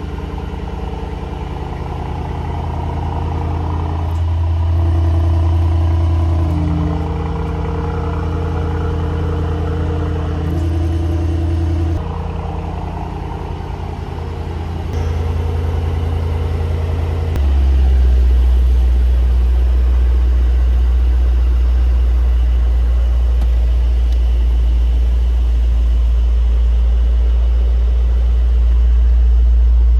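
Mercedes-AMG GT 63 twin-turbo 4.0-litre V8 running at idle through its exhaust. The pitch shifts in small steps a few times. About seventeen seconds in, it changes to a louder, deeper steady drone.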